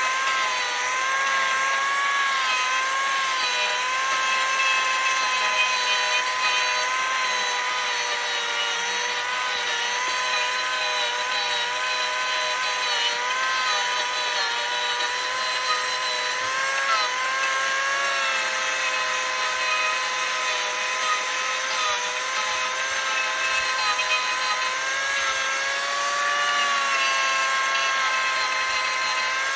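Angle grinder with a carving disc shaping a wooden root bowl blank. It gives a steady whine that wavers a little in pitch as the disc bites into the wood.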